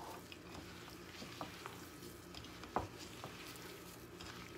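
A hand mixing and rubbing crumbly ghee-and-flour dough with chopped almonds in a glass bowl: faint rustling and squishing, with a few light knocks against the glass, the clearest a little past halfway.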